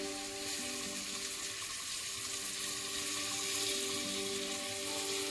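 Steady sizzling hiss of pots cooking on a gas stove, under steady background music.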